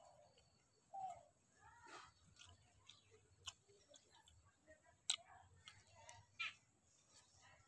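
Near silence, with a few faint sharp clicks and brief faint chirps.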